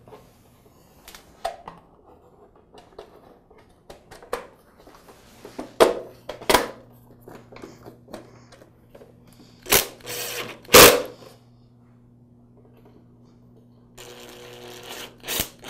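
Clicks and knocks of a plastic espresso-machine front console being handled and pressed into place, with several sharp loud clicks. Near the end a cordless screwdriver whirs for about a second and a half, driving in a screw.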